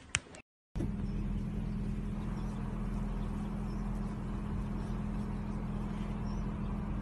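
Steady vehicle engine hum with street noise. It starts abruptly just under a second in, after a brief silence.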